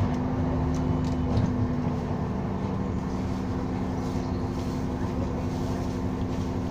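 Alexander Dennis Enviro400 diesel double-decker bus idling at a standstill, heard from inside the passenger saloon: a steady engine hum with a loud fan running. A few faint rattles come in the first second or so.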